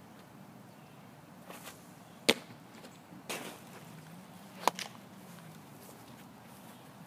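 A baseball popping into leather gloves: a sharp pop a little over two seconds in and another, slightly softer, about two seconds later, with a duller scuffing sound between them.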